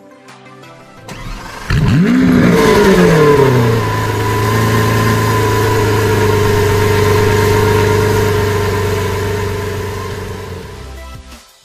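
Lamborghini Aventador S's 6.5-litre V12 starting up: it catches with a sharp rev that rises and falls, then settles into a steady idle that fades and cuts off near the end.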